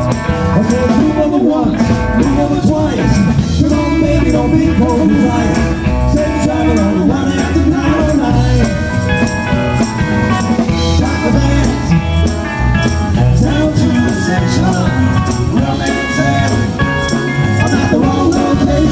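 Live band playing blues-rock: a male singer over electric guitars, bass and drums with a steady beat.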